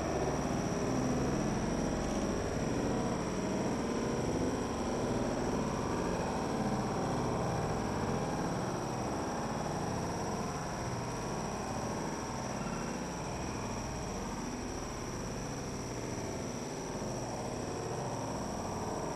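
Steady background rumble, even and unbroken, with a thin high whine running through it.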